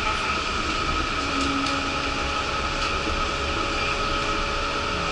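Yurikamome rubber-tyred automated guideway train running at steady speed, heard from inside the front car. It gives an even tyre-and-running noise with a few steady held tones, and faint clicks now and then.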